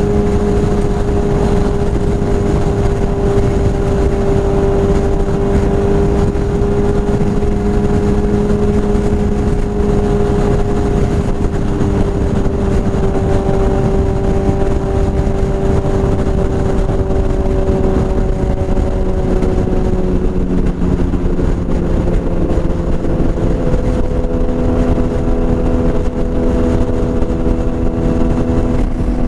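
BMW S1000RR inline-four engine running through a full Akrapovič exhaust at steady revs, its note drifting slowly and shifting to a different pitch about twenty seconds in.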